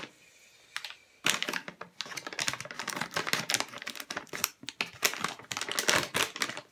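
Scissors snipping through plastic packaging, the plastic crinkling and crackling in a quick, irregular run of clicks that starts about a second in.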